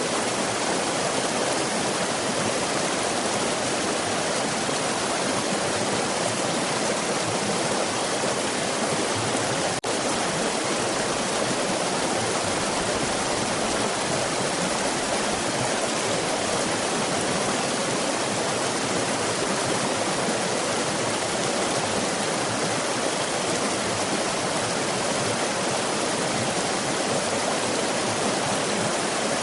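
Waterfall: steady rushing of falling water, with one brief click and dip in level about ten seconds in.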